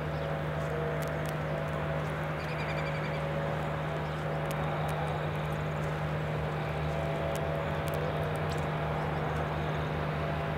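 Steady low hum with a haze of background noise and scattered small clicks; a short trill of rapid repeated high notes from a bird about two and a half seconds in.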